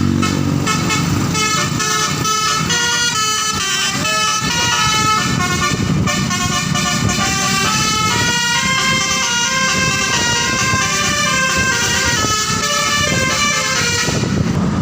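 Bus telolet (basuri) horn playing a fast tune of short stepped notes over the bus's engine rumble, stopping near the end.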